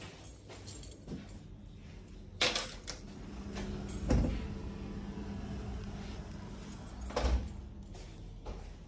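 A cupboard door being opened and shut: a few knocks, the heaviest a low thump about four seconds in, with a faint steady hum in between.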